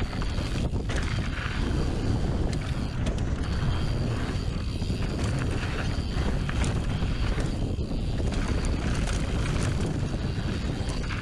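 Mountain bike riding fast down a dirt trail: steady wind rush over the camera microphone with tyre noise, and scattered clicks and knocks from the bike rattling over the rough ground.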